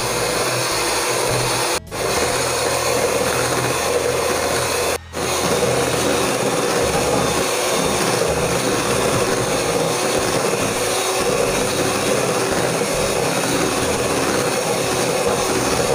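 Electric hand mixer running steadily at speed, its beaters whipping egg whites into foam in a plastic bowl. The sound drops out for a split second twice, about two seconds and five seconds in.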